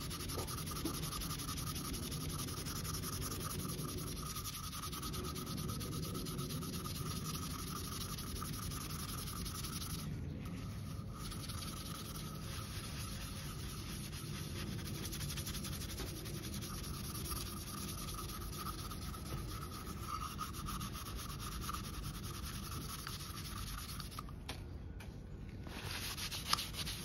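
Extra-fine 0000 steel wool scrubbed rapidly back and forth over a metal bell lubricated with WD-40, a steady rubbing scrape as light rust and grime are cleaned off. The scrubbing pauses briefly about ten seconds in and again near the end.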